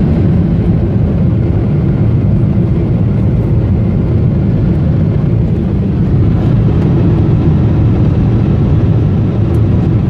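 Boeing 777-300 jet engines at takeoff climb power, heard inside the cabin beside the wing: a loud, steady low rumble.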